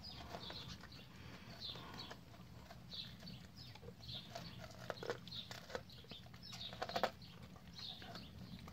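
Yellow Labrador retriever nibbling and chewing sweet corn kernels off the cob: soft crunches and teeth clicks on the cob, with a louder crunch about seven seconds in.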